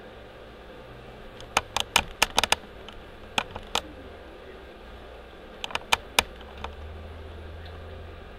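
Irregular clusters of sharp clicks, about a dozen in all, in three groups over a steady low hum.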